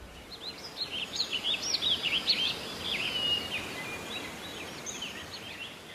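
Several small birds singing and chirping in woodland, densest in the first few seconds and thinning out after, over a steady soft hiss of outdoor ambience.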